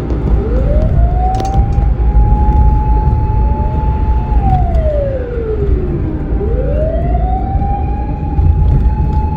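Fire engine siren wailing: it rises to a held high note, slides slowly down, then rises and holds again. Steady low engine and road rumble runs underneath.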